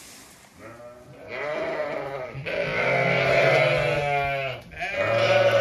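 Zwartbles ewes bleating: about three long, drawn-out calls, several voices overlapping, the first starting about a second in.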